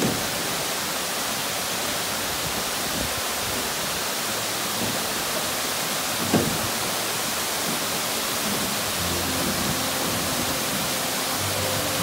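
Waterfall: a steady rush of water falling down a rock face into a pool, with one brief thump about six seconds in.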